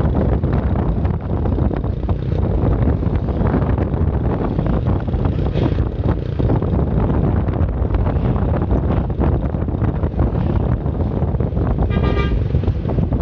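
Steady wind rumble on the microphone over road and vehicle noise while moving in traffic. About twelve seconds in, a vehicle horn gives one short toot.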